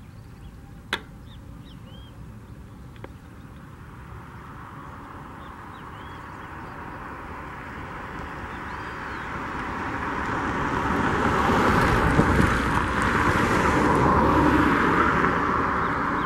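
Airbus A319 jet engines at takeoff power, their roar building steadily as the airliner rolls down the runway toward the listener, loudest about twelve seconds in. Birds chirp faintly over it, and a single sharp click sounds about a second in.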